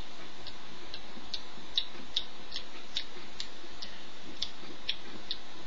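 Light, regular ticking, about two to three ticks a second, over a steady hiss.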